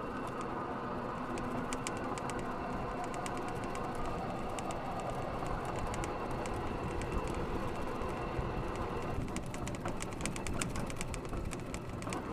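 Golf cart rolling along a dirt and gravel road: a steady rumble of the cart in motion, with the tyres crunching and the cart body rattling in many small clicks.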